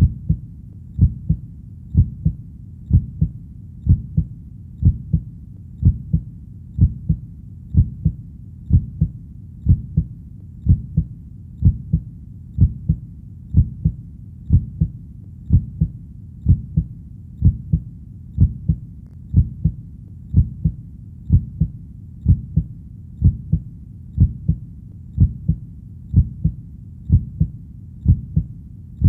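A heartbeat beating slowly and steadily, about one double thump (lub-dub) a second.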